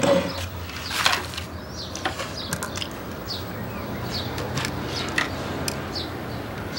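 Craft work with a hot glue gun: small clicks and handling noises as beads, paper and the glue gun are worked, with a few short high squeaks.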